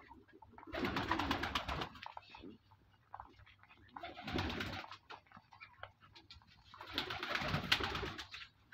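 A pigeon cooing in three bouts of about a second each, mixed with rustling of cut grass as rabbits feed in it.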